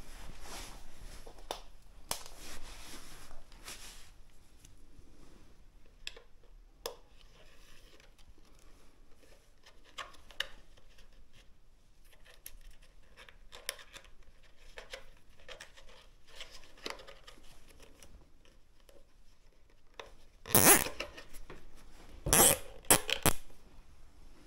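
Plastic cable ties being pulled tight, with quiet scraping and rustling of hand work, then a few short, loud zipping strokes near the end.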